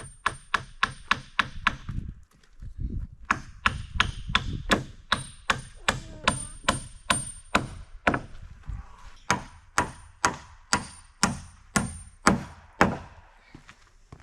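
Hammer driving nails into wooden siding boards: a quick run of blows, a short pause, then a long run of steady blows about three a second, with a faint metallic ring.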